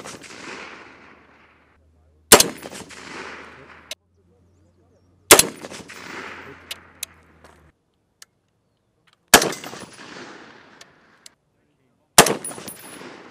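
Unsuppressed 7.62 mm G28/HK417 semi-automatic rifle firing single shots, four in all, spaced about three to four seconds apart. Each sharp report is followed by an echo that dies away over about a second and a half.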